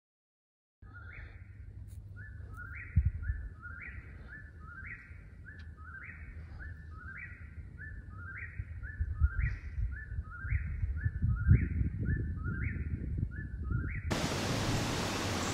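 A songbird singing the same short two-note phrase over and over, a low note followed by a higher, up-and-down note, about a dozen times. Beneath it is a low rumble with a few thumps. Near the end it cuts abruptly to a steady hiss.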